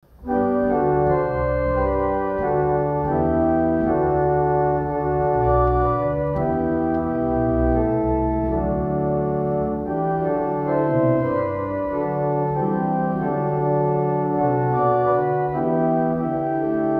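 Pipe organ playing held chords over deep bass notes, the chords shifting every second or so; it comes in just after the start.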